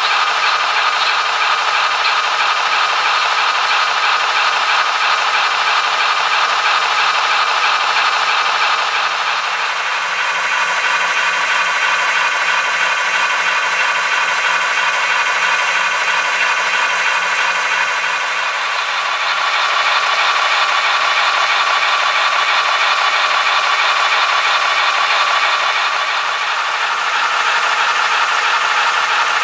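H0 model of an SNCF 241 A steam locomotive running fast in place on rollers, a steady loud whirring rattle from its drive and spinning wheels. The tone changes twice, about a third and two thirds of the way through.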